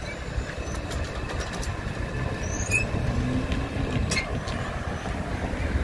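Steady low rumble of vehicles at a railroad crossing, from a train and road traffic. A car drives past close by about halfway through.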